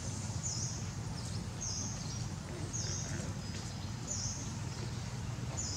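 Outdoor forest ambience: a short, high, buzzy call repeats five times at an even pace over a steady low rumble.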